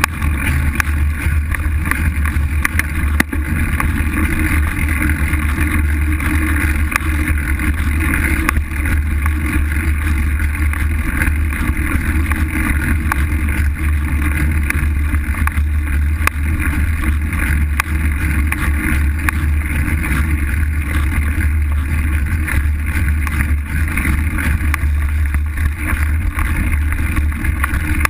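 Steady loud rumble of wind buffeting a bike-mounted camera's microphone, mixed with the fat front tyre rolling over a dirt trail, with small jolts and rattles from the bumps.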